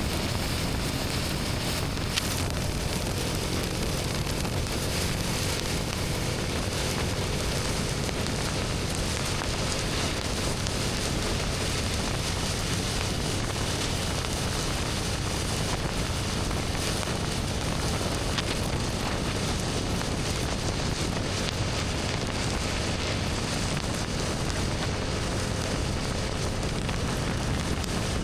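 BMW R1250GS Adventure boxer-twin engine with an Akrapovic slip-on exhaust running steadily while riding, mixed with heavy wind rush over the microphone.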